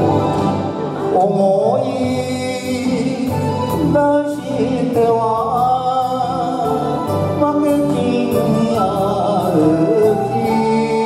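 An older man sings an enka song into a microphone over a recorded backing track, holding long notes with a wavering vibrato.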